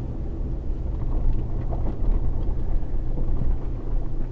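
Truck driving, heard from inside the cab: a steady low engine and tyre rumble, with a few faint knocks as it turns off the pavement onto a grassy dirt track.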